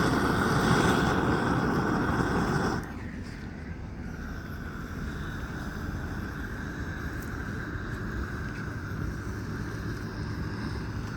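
Gas roofing torch flame, a loud steady rushing hiss, heating a Torchon bitumen membrane patch to seal its edge. About three seconds in it drops suddenly to a quieter steady hiss.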